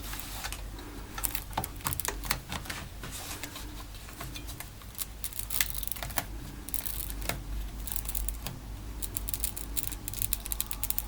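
Irregular small clicks, taps and light crinkles from handling a Samsung Galaxy Tab 3's chassis and its removed cracked glass digitizer with its adhesive tape. A low steady hum runs underneath.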